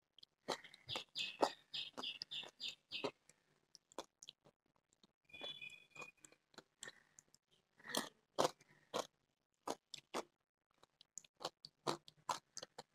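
Close-up chewing of a crisp, spicy Jolochip tortilla chip: irregular dry crunches, thick at first, thinning out midway, then picking up again.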